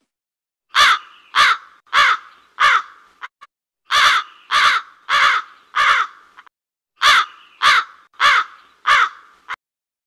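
Crow cawing in three runs of four caws each, at about one and a half caws a second, with a short pause between runs.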